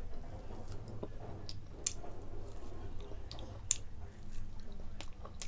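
Close mouth sounds of a person biting and chewing grilled pork barbecue pulled off a skewer, with several sharp clicks scattered through the chewing.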